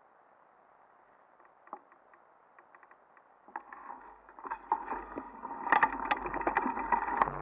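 Nearly quiet at first, then from about halfway wind rushing over the microphone, with crackling and clicks from the dry, stony ground as the camera moves, growing louder toward the end.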